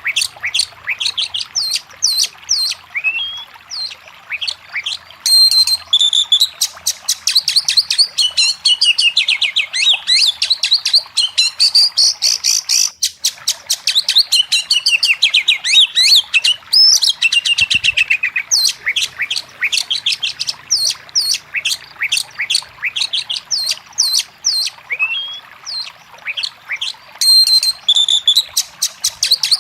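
Oriental magpie-robin singing without pause: a fast, loud string of varied whistles, trills and sharp chirps.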